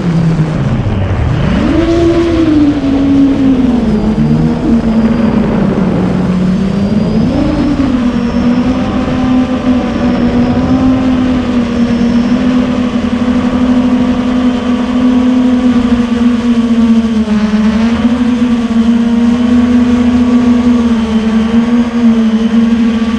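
9-inch FPV quadcopter's brushless motors and propellers whirring under throttle. The pitch drops sharply about a second in as the throttle is cut, climbs back a second later, then holds fairly steady with small wavers.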